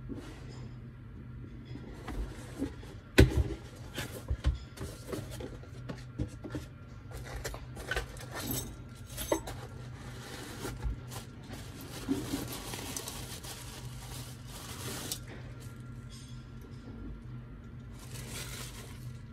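Small parts and tools being handled on a workbench: scattered clicks, knocks and scrapes, with one sharp knock about three seconds in, over a steady low hum.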